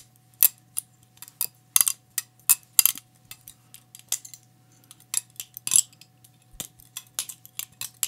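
Cheburkov balisong (butterfly knife) with titanium handles being flipped: an irregular run of sharp metallic clicks and clacks, two or three a second, as the handles and blade knock together. The reviewer thinks it sounds a bit cheap.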